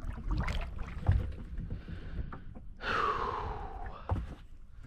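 Kayak paddling: scattered paddle knocks and water sounds over a low rumble. About three seconds in comes a long exhale that falls in pitch.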